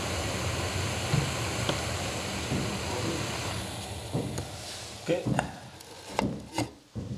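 Gas canister stove with an integrated pot burning with a steady hiss, water near the boil; the hiss dies away about four seconds in as the valve is turned off, followed by several light knocks and clicks as the pot and stove are handled.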